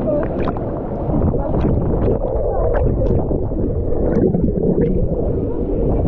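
Water in a water-park wild river sloshing and gurgling around a camera held at the water's surface, with a dense churning rumble and repeated short splashes.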